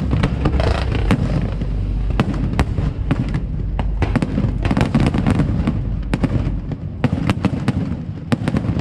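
Aerial fireworks bursting: a dense run of sharp bangs and crackles in quick succession, with a deep rumble under the first couple of seconds.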